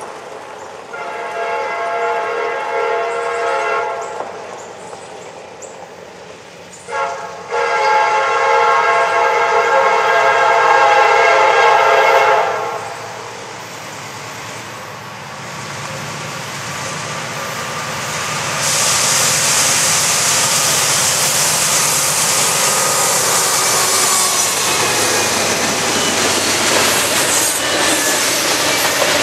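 A Norfolk Southern freight train's lead diesel locomotive sounds its air horn in two long blasts, the second starting about seven seconds in. The locomotives then pass, pulling hard up the grade, and a long string of tank cars follows with a steady roar of wheels and rail clatter.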